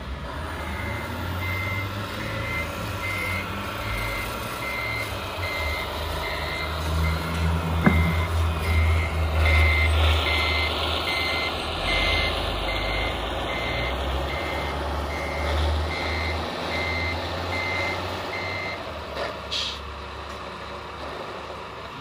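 Reversing warning beeper of a radio-controlled model truck, beeping evenly a little more often than once a second and stopping a few seconds before the end. Under it runs a low engine-like rumble, with one sharp click about eight seconds in.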